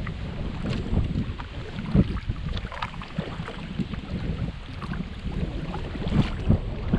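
Braca VII kayak paddle blades dipping into river water on alternate sides, each stroke making a short splash, with wind rumbling on the microphone.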